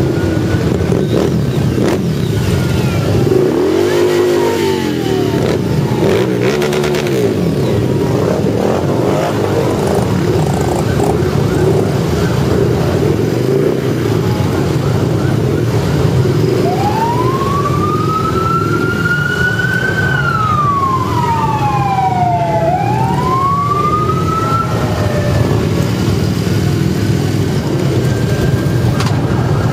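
Harley-Davidson V-twin motorcycle engines running steadily in a slow parade, heard from one of the bikes. An engine revs up and back down twice, around four and seven seconds in. Past the middle, a siren wails up and down.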